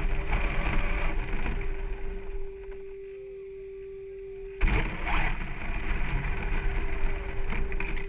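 Onboard sound of a brushless 1/10 RC short course truck driving over rough ground: a rumbling, rattling mix of tyre and chassis noise with wind. It drops away about three seconds in and comes back with a sudden jolt just past halfway. A faint steady hum runs underneath.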